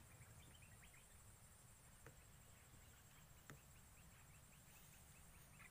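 Near silence: faint outdoor ambience with a faint steady high hiss and runs of quick, high chirps, plus two faint clicks about two and three and a half seconds in.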